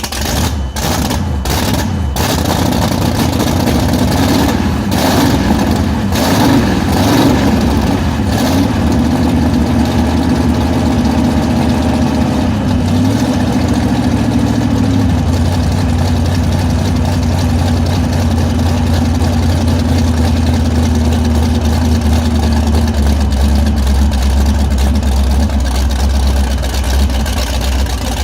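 The boat's newly installed engine is running for the first time. It runs unevenly at first, with a few sharp knocks or pops and its pitch rising and falling, then about halfway through drops to a steady low idle.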